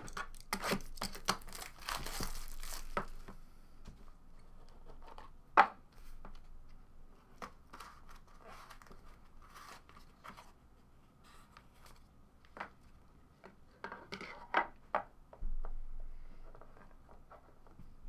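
Plastic shrink wrap being torn and crinkled off a sealed trading card box, busiest in the first three seconds. Then the cardboard lid is lifted and the cards handled: scattered taps, one sharp knock, and rustling.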